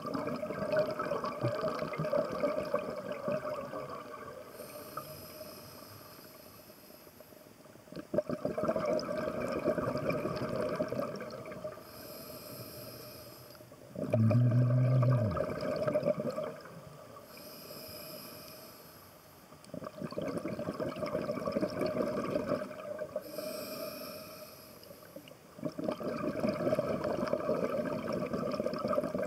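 Scuba regulator breathing underwater, about five slow breaths: a short high hiss on each inhale, then a longer rush of exhaled bubbles. About halfway through, a low buzzing tone falls in pitch for about a second and a half, the loudest moment.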